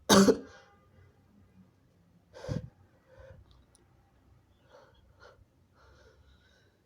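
A loud, harsh human sneeze right at the start from a person who is sick, then a second, shorter and much weaker burst about two and a half seconds in, followed by faint breaths.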